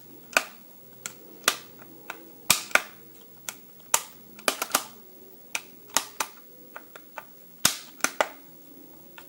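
Sharp plastic-and-metal clicks, irregular, roughly one or two a second, from working the controls of a Craftsman V20 4.5-inch cordless angle grinder, such as its pivoting guard and its paddle switch. The motor is not running.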